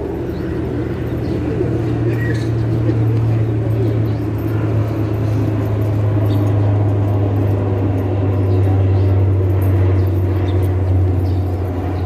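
Low, steady hum of a motor vehicle's engine running, growing slightly louder over several seconds.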